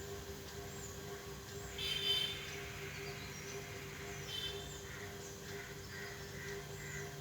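Birds chirping and calling, with two louder calls about two seconds and four and a half seconds in, then a run of short repeated chirps, over a steady low hum.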